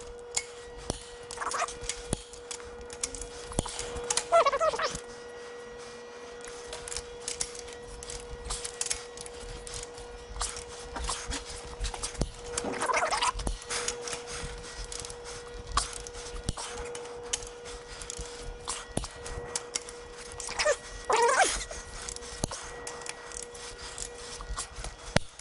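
Torque wrench ratcheting and clicking as the main bearing cap bolts of a Detroit Diesel engine block are tightened, with scattered metal clicks and knocks. Several short squealing whines come and go, over a steady hum.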